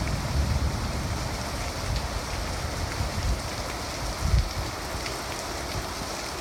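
Heavy thunderstorm rain falling steadily, with gusts of wind buffeting the microphone in low rumbles and a few faint drop ticks.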